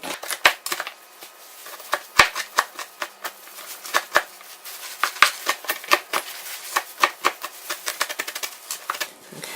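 Large knife rocked back and forth to finely chop jalapeños on a cutting board: rapid, uneven knocks of the blade on the board, several a second.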